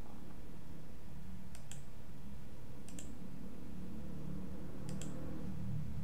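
Computer mouse clicking three times, each a quick pair of clicks, over a steady low hum.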